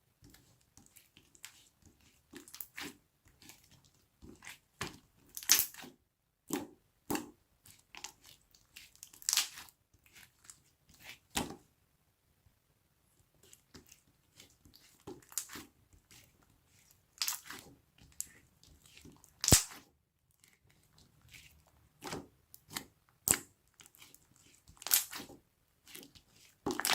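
Thick, chewy slime being squeezed and pressed by hand, giving irregular sticky clicks and crackling pops, a few of them much louder than the rest.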